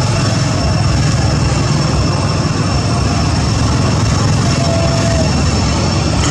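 Loud, steady low rumble, even throughout, with a faint thin high whine held above it.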